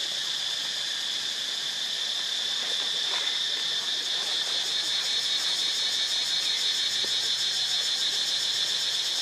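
A steady, high-pitched insect chorus with a fast pulsing trill, growing slightly louder as it goes on.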